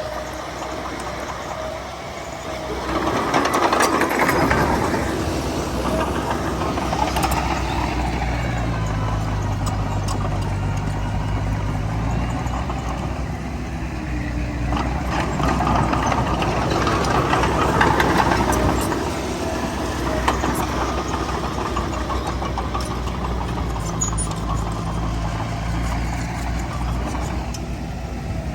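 Heavy diesel earthmoving machinery running, a bulldozer working soil with dump trucks, its engine surging louder twice under load.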